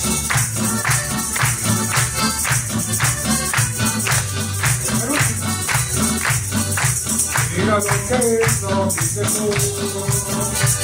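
Live church band playing an upbeat instrumental passage between sung choruses, drums and bass keeping a steady beat, with a melody line coming in more strongly in the second half.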